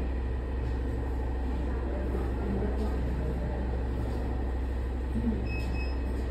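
A steady low hum with a faint murmur over it, and a short high electronic beep near the end.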